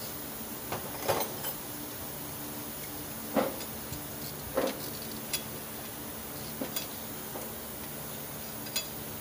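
Scattered light metallic clinks, about six of them a second or so apart, over a steady low hum.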